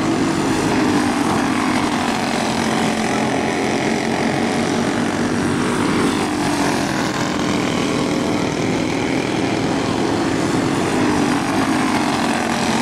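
Several racing go-kart engines running at speed around a dirt oval, a steady buzzing drone whose pitch rises and falls as the karts pass.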